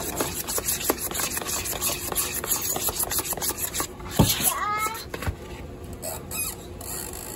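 A metal spoon stirring and scraping thick pancake batter against the sides of a plastic bowl: a run of short rubbing strokes. About four seconds in there is a louder knock, followed by a brief whine from a small child.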